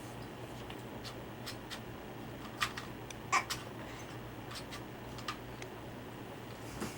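Quiet room tone with a steady low hum and a scattered handful of small, sharp clicks and ticks.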